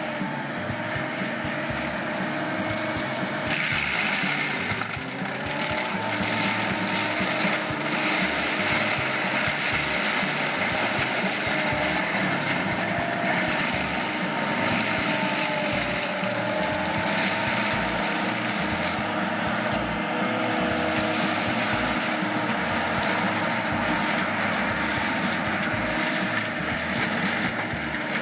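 Heavy logging machinery running: a steady engine noise whose pitch drifts slowly up and down.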